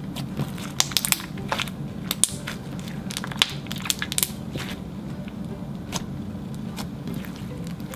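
Clear slime being kneaded and squished by hand with a jiggly store-bought slime, giving irregular sharp squelching pops and clicks, thickest in the first half, over a steady low hum.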